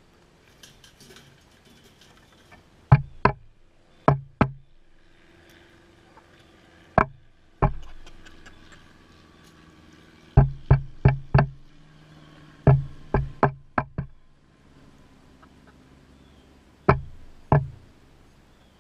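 Chickens pecking at the camera and its legs: sharp taps with a dull thump, in pairs and runs of three or four, with pauses of a second or more between runs.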